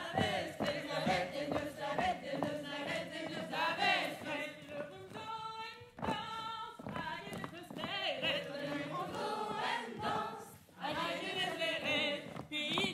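A group of voices singing together, choir-style, with no clear instrumental backing.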